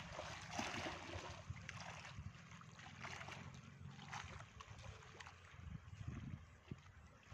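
Faint outdoor ambience: small waves lapping at the lake shore, with a low, uneven rumble of wind on the microphone.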